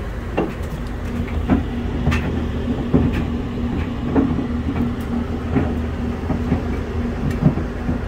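Furnace air handler running with a steady low hum, with frequent irregular clicks and ticks throughout.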